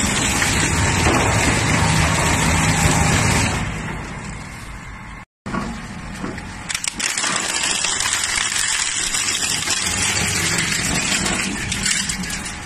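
Industrial crusher machine running and grinding material: a loud, dense mechanical noise with a low hum underneath. It cuts out abruptly for a moment about five seconds in, then resumes with a few sharp knocks.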